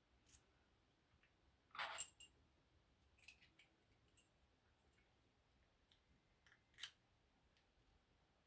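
Keys and a small lock being handled: a few faint metallic clicks and rattles, the loudest cluster about two seconds in, single ticks after it and one more near the end.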